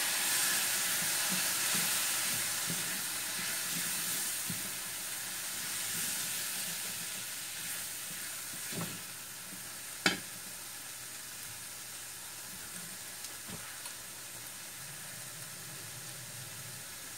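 Diced fresh tomatoes sizzling in a hot stainless steel skillet with sautéed onions and spices. The sizzle is loudest as they go in and dies down over several seconds to a quieter steady hiss. A wooden spoon stirs the mix and knocks against the pan a couple of times.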